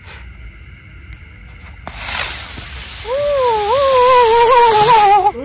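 A small flying spinner firework goes off: a loud hiss starts about two seconds in, and a second later a whistle joins it, wobbling up and down in pitch until it cuts off suddenly near the end. It flies off erratically, having lost its balance.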